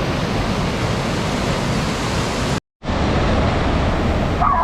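Waterfall water rushing: a loud, steady roar that cuts out completely for a split second a little past halfway, then resumes.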